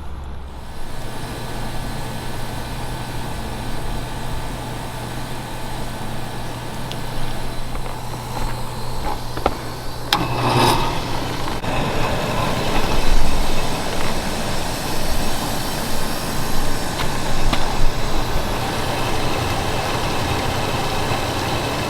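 Belt-driven commercial exhaust fan with a newly installed motor and a freshly tightened belt, running after being switched back on. A steady low hum comes first; about ten seconds in there is a click, and a louder, even rush of air and machinery takes over for the rest.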